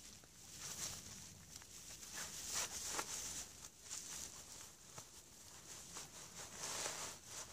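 Dry grass and leaf litter rustling in irregular bursts as a handful of dry grass is gathered and stuffed away by hand.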